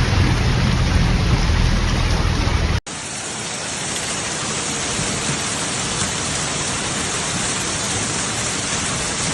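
Heavy rain pouring down, a steady hiss, with a deep rumble under it for the first three seconds. About three seconds in the sound cuts abruptly to another steady stretch of downpour.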